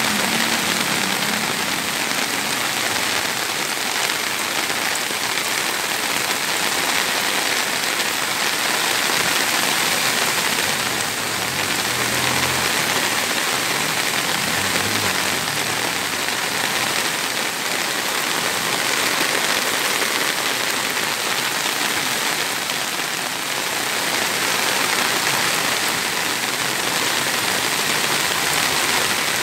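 Heavy rain pouring down in a steady, dense hiss, mixed with floodwater rushing across a road.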